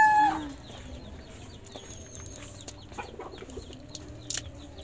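A rooster's crow ends a moment in. After it come faint scattered clicks from sea urchins being handled in a metal basin of water, with one sharper click about four seconds in.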